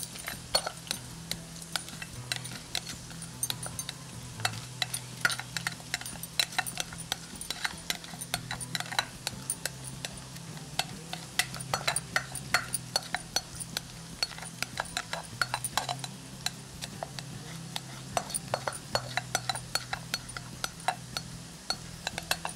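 A metal spoon clinking and scraping against a glass bowl and the rim of a cooking pot as rice is spooned into salted water: many light, irregular clinks over a steady low hum.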